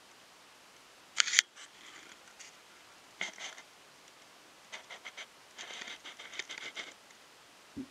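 Camera handling noise as the camera moves in on the subject: irregular bursts of small clicks and scratches, loudest about a second in, with a dull thump near the end.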